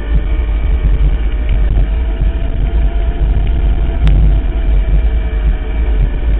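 Electric mountain bike rolling fast down a dirt forest trail: a heavy, rattling rumble from the tyres and frame over a thin, steady whine. A sharp knock about four seconds in.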